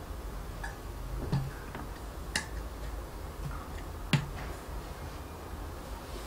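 A man drinking from an insulated bottle: a few soft swallows and small sharp clicks, with two louder knocks about two and four seconds in, over a low steady hum.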